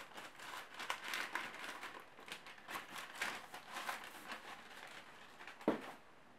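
Paper wrapping crinkling and rustling as a book is pulled out of it, followed by a single thump about five and a half seconds in.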